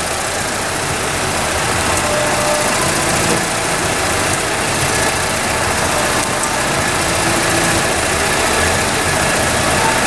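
2002 VW Polo's 1.4-litre four-cylinder petrol engine idling steadily just after a restart. This is the engine being diagnosed for a cylinder 2 misfire, with the number 2 injector switching again after the restart.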